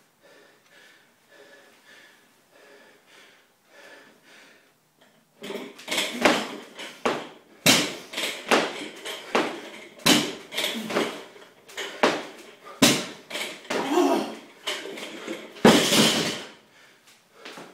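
A 185 lb barbell loaded with rubber bumper plates is dropped to the floor after each power clean, starting about five seconds in. It lands with four sharp impacts about two and a half seconds apart, with heavy breathing between the reps.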